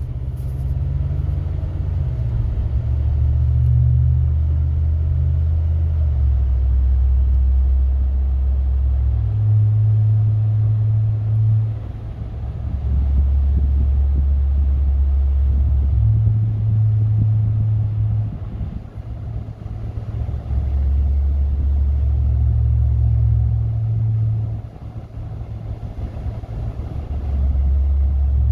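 Low droning hum from a 2019 Ram pickup, heard from inside the truck, switching back and forth between two deep pitches and swelling and easing every few seconds. It is the truck's persistent vibration-and-drone fault, a well-known problem on these trucks that the dealer has not been able to fix.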